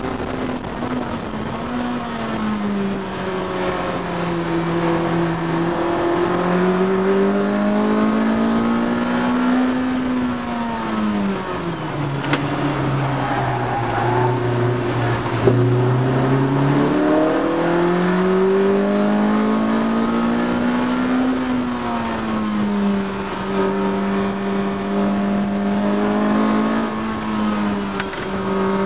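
Honda VTEC four-cylinder engine of a Lotus Elise S1, heard from inside the cabin while it is driven hard on track. The revs rise and fall through the gears, sink to their lowest about halfway through for a slow corner, then climb back up and hold high.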